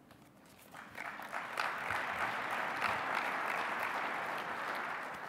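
Audience applauding, building up about a second in and fading away near the end.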